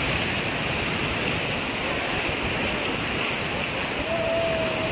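Floodwater rushing steadily, a continuous, even noise of fast-flowing water.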